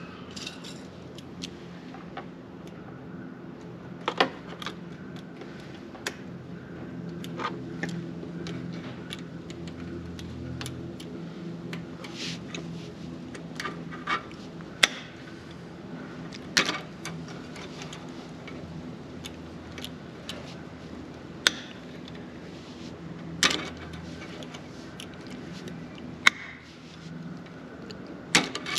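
Irregular metallic clicks and clinks of hand tools and parts as a throttle cable and bracket are fitted to a riding mower engine's carburetor linkage, over a faint steady low hum.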